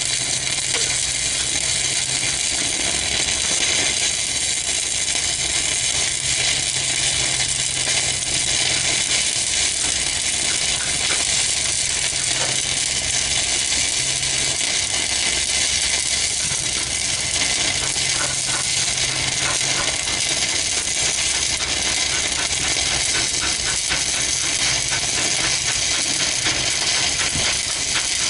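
Stick-welding arc crackling and hissing steadily as a welding rod burns down in one unbroken run, with a steady low hum underneath.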